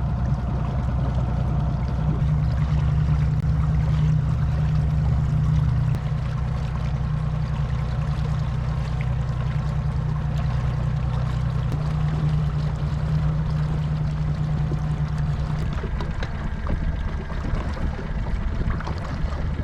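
Boat motor running steadily at trolling speed, a constant low hum with water and wind noise over it.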